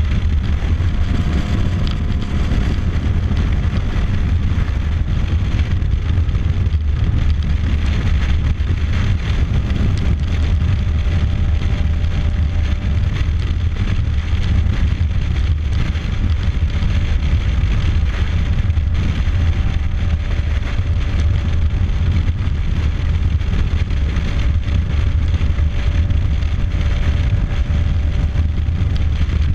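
Steady wind rush buffeting the microphone over the low, even drone of the engine and tyres at highway cruising speed on a motorcycle, with a faint steady whine underneath.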